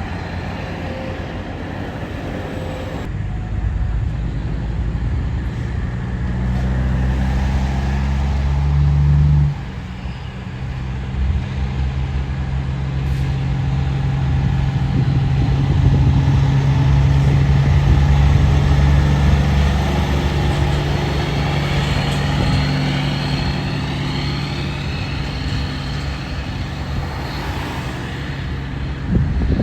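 Heavy diesel truck engine running with a deep, steady drone. The drone breaks off sharply about ten seconds in, then picks up again and holds.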